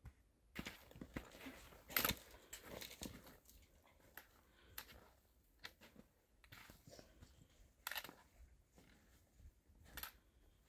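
Footsteps crunching in snow, faint and uneven, with the loudest crunch about two seconds in.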